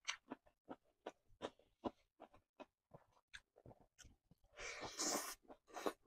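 Close-miked wet mouth sounds of a person eating by hand: repeated short smacks and clicks of chewing. About four and a half seconds in, a longer, louder burst of mouth noise comes as a handful of rice and saucy food goes into the mouth, followed by another short burst.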